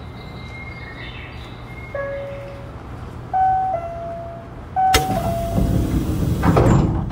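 Inside an Osaka Monorail 2000-series car at a station stop: a steady low hum, short electronic chime tones, and a falling two-note chime sounded twice. About five seconds in, a loud rush of noise lasting about two seconds, typical of the car's sliding doors moving.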